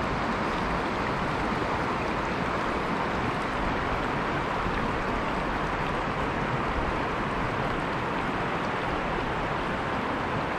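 Steady rush of flowing river water, an even unbroken hiss with no changes.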